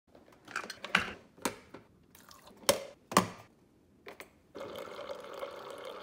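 Hamilton Beach FlexBrew single-serve coffee maker being set up, with several sharp clicks and knocks. About four and a half seconds in comes a steady hiss and trickle as the brewed coffee streams into a metal tumbler.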